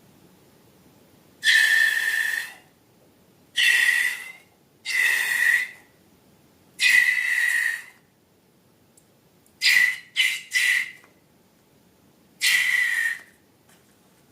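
Air squealing out through a stretched balloon neck in short whistling bursts: five squeals of about a second each, with a quick run of three shorter squeaks a little past the middle.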